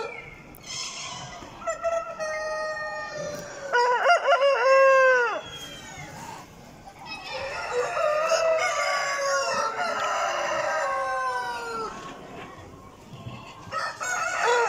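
Several roosters crowing, one crow after another. The loudest crow comes about four seconds in, lasting over a second and falling in pitch at its end, and more crows at different pitches overlap from about seven to twelve seconds in.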